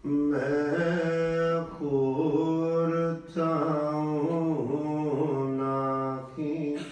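A man's voice chanting in long held notes, in two phrases with a short break for breath about halfway through.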